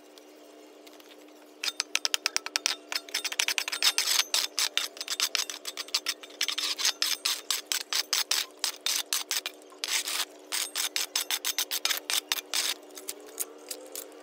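Brisk, rapid scratchy strokes of a long-handled plastic broom sweeping and a shovel scraping over dirt and concrete. They start about a second and a half in, pause briefly twice, and stop near the end. A faint steady hum sits underneath.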